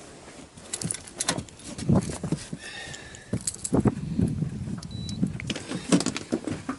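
Irregular knocks and clatter of gear being handled on a small boat, with a short whirring tone about three seconds in.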